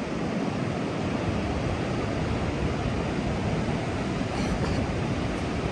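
Ocean surf breaking on a sandy beach: a steady, even rush of noise.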